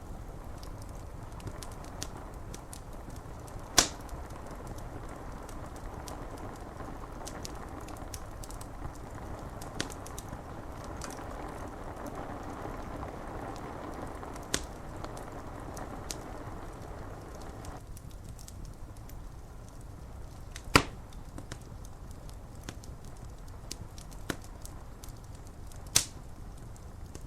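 Wood fire crackling with scattered sharp pops, the loudest about four seconds in, near the middle, and twice near the end, over a steady hiss of rain on window glass.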